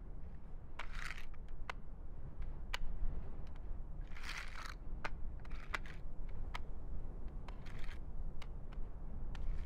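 Pilgrims making full-body prostrations on gravelly ground. There are sharp clacks of wooden hand boards, and several scraping swishes as hands and bodies slide forward over the stones. Wind rumbles low underneath.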